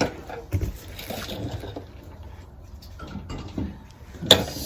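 Light knocks and rustling as a motorcycle rear wheel is handled into place on its hub, with one sharp click near the end.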